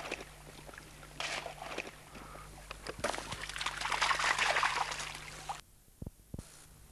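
Hunting dog splashing through a shallow stream, the water sloshing in uneven bursts that are loudest about three to five seconds in, then stopping suddenly near six seconds.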